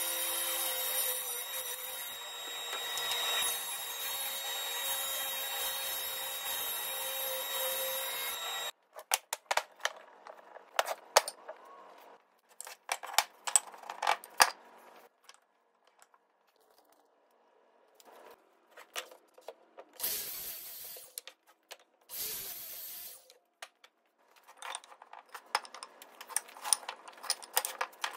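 Table saw with overhead dust extraction running and cutting a wooden board, a steady noise that cuts off abruptly about nine seconds in. Then wooden pieces knock and clatter as they are set down and handled on a workbench, with two longer scraping sounds in between.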